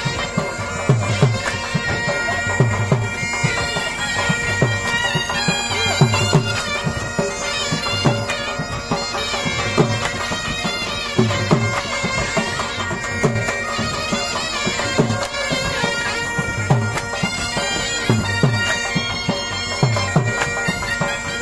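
Bagpipe music: a bagpipe plays a melody over its steady drones, with a drum beating about once a second underneath.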